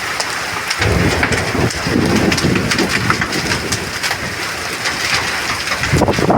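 Heavy rain with hail in a windstorm: a dense steady hiss peppered with many sharp ticks of drops and hailstones striking surfaces, under a low, gusty rumble.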